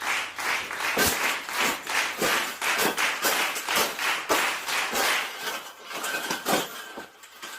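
Rapid, irregular tapping and scraping knocks on a hard object, about two to three a second, thinning out near the end.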